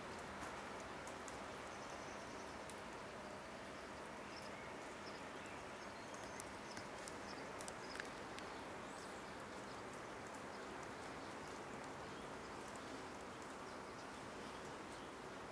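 Outdoor ambience: a steady faint hiss with scattered small bird chirps, and a single sharp click about eight seconds in.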